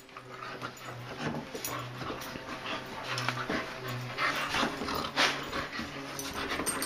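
A Keeshond and a Finnish Lapphund play-fighting: low growls in short stretches with gaps between them, mixed with rushes of breathy panting.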